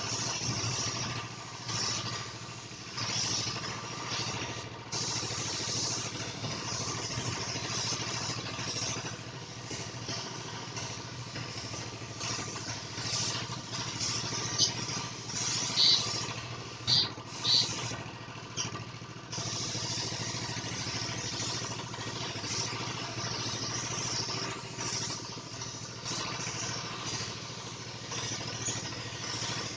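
A motor running steadily under a hiss that swells and fades, with three sharp clicks a little past halfway.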